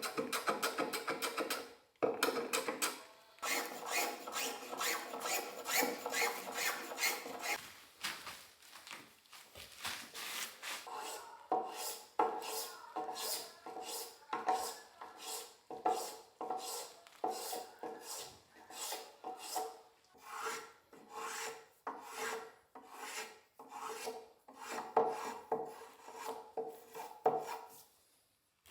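Hand rasp filing a wooden chair seat in repeated back-and-forth strokes. The strokes are quick at first and then settle to a slower, even rhythm of about one and a half a second.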